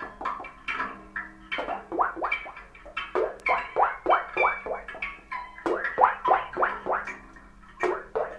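Free-improvised percussion duo: a dense, irregular run of short struck sounds, many sliding quickly down in pitch, with a few sharp clicks among them.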